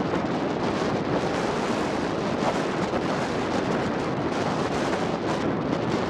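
Strong wind buffeting the microphone over heavy surf breaking on the beach, a steady roar with no clear bird calls.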